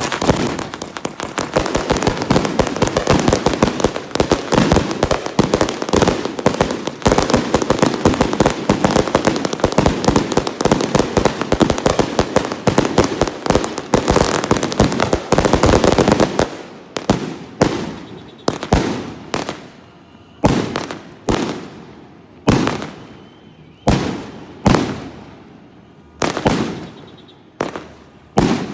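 Consumer fireworks going off: a dense run of rapid crackling bangs for about sixteen seconds, then separate loud salute reports about one a second, each trailing off in an echo.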